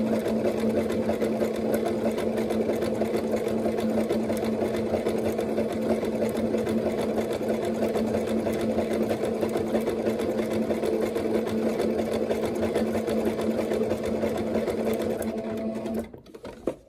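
Singer Starlet 6680 sewing machine running steadily at speed, its motor hum and rapid needle strokes sewing an overlock stitch with an overcast presser foot. It stops abruptly near the end.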